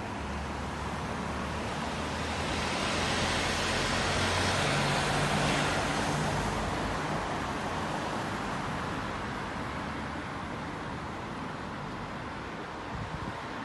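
A van passing on the wet road below: the hiss of its tyres on wet tarmac and its engine hum swell to a peak about five seconds in and then fade away, over steady distant traffic.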